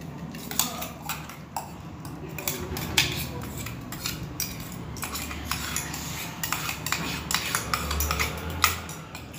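A metal spoon clinking and scraping against a stainless steel bowl in irregular taps as ginger-garlic paste is spooned onto raw chicken pieces.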